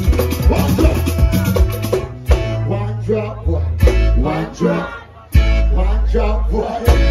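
Live punta rock music over the stage PA, with a voice singing over guitar and bass. The drums drop out about two seconds in, and a heavy bass comes back in near the end.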